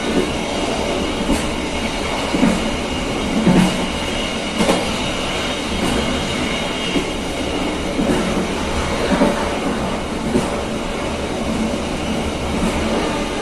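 KA Serayu passenger train running along the track: a steady rumble of the wheels and carriages, with the knock of wheels passing over rail joints about once a second.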